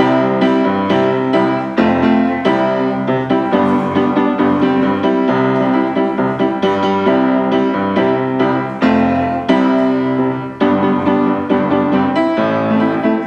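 Piano music, a steady stream of struck notes.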